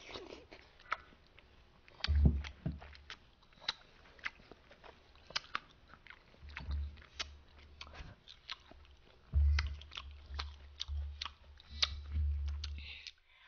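A person eating close to the microphone: chewing mouthfuls of fruit from a watermelon punch (hwachae), with many irregular sharp wet mouth clicks and dull low thuds.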